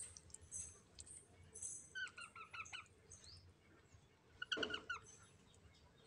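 Green parakeet chirping: two short runs of quick repeated notes, one about two seconds in and another about four and a half seconds in.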